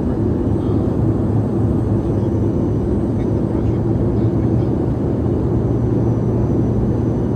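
Steady airliner cabin noise in flight: the drone of engines and rushing air, with a low, even hum that does not change.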